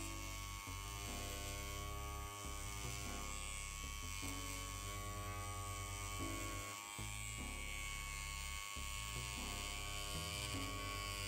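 BRONC Magic wireless rotary tattoo pen running at 7.5 volts, a steady motor buzz as its curved mag needles work lines into silicone practice skin. The buzz dips briefly a few times.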